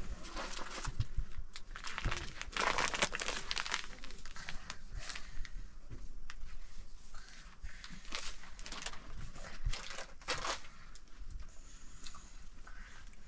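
Irregular rustling and crinkling in short bursts, densest about two to three seconds in, with shorter bursts around five, eight and ten seconds.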